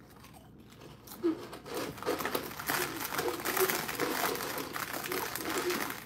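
A crinkly potato-chip bag being handled and rustled, in a quick run of crackles that starts about a second in.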